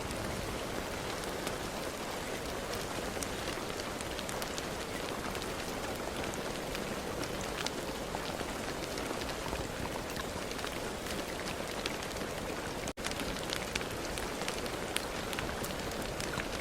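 Steady rain falling, a dense hiss with many individual drops ticking through it. The sound cuts out for an instant about three-quarters of the way through, then carries on.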